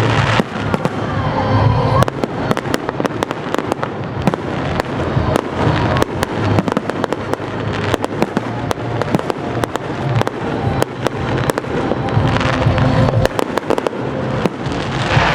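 Festive fireworks salute: a dense, continuous run of sharp bangs and crackles over a deep rumble of shells bursting.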